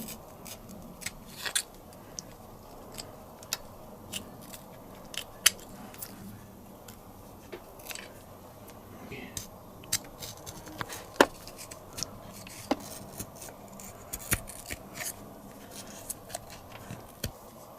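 Sharp, flexible knife blade cutting and scraping at scooter engine casings. Irregular small clicks and taps come every fraction of a second to a second.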